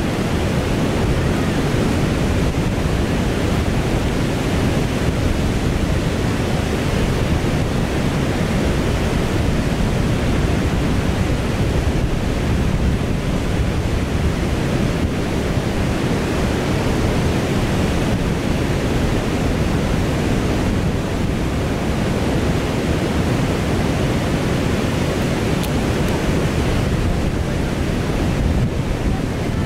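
Steady rushing of river water over falls and rapids, an even roar with no breaks.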